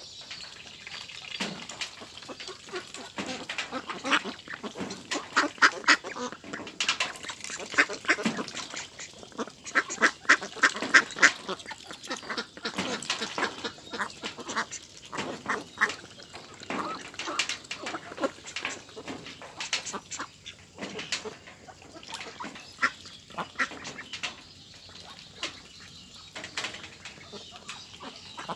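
A large flock of domestic ducks quacking, many short calls overlapping in quick runs, loudest and densest in the first half.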